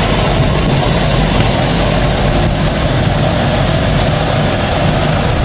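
Steady, loud aircraft turbine noise: a deep, even rumble with a thin, high, constant whine over it.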